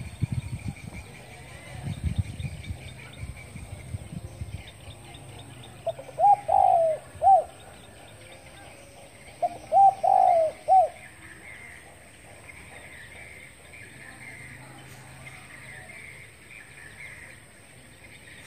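Caged spotted dove cooing: two short phrases of three or four coos each, a few seconds apart, near the middle.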